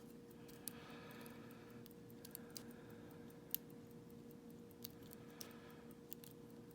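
Faint, irregular light clicks of a pick working the wafers of a small vintage Elgin wafer padlock, with one louder click about three and a half seconds in, over a faint steady hum.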